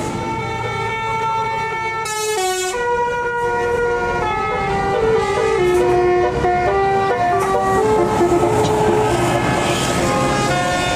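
Tour bus's telolet musical air horn playing a tune: a run of held notes stepping up and down in pitch, with a quick downward sweep about two seconds in.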